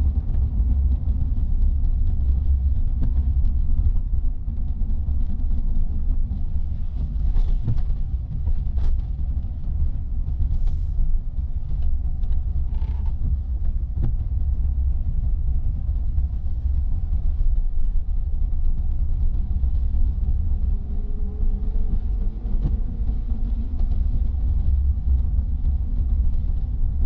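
Steady low rumble of road and engine noise inside a car's cabin as it drives slowly on wet city streets. A few faint short clicks come in about halfway through.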